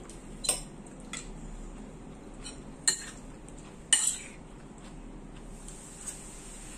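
Metal forks clinking and scraping against ceramic plates and a metal bowl during a meal. A handful of sharp clinks, the loudest about half a second, three and four seconds in.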